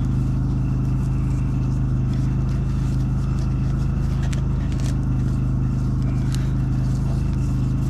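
A steady low machine hum running unchanged, with a few faint light clicks on top.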